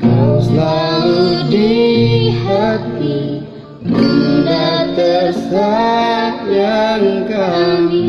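A female voice singing a slow Indonesian ballad over acoustic guitar accompaniment, in two sung phrases with a short break just before the midpoint.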